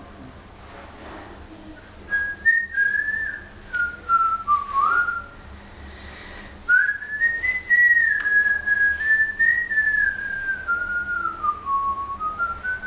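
A person whistling a tune: one clear gliding melody line that starts about two seconds in, pauses briefly midway, then carries on.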